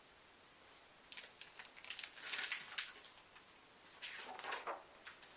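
Soft rustling and light taps of a picture book being handled, in a quick run of crisp little sounds from about one to three seconds in and a few more around four seconds.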